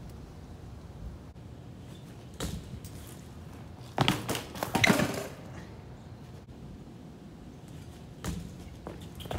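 BMX bike parts and tyres knocking and clattering on hard ground during a street trick attempt: a thud about two and a half seconds in, a louder scraping clatter from about four to five seconds in, and another thud near the end.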